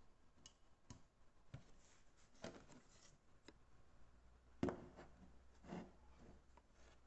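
Near silence in a small room, broken by about six faint, scattered clicks and short rustles of handling. The most distinct click comes a little past halfway.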